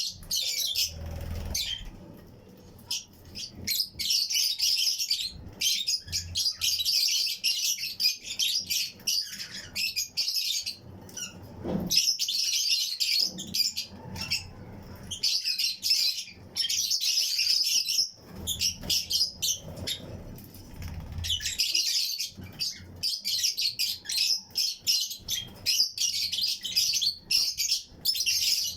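A colony of Fischer's and lutino lovebirds chirping, a dense stream of rapid, high-pitched overlapping chirps that thins out briefly a few times before picking up again.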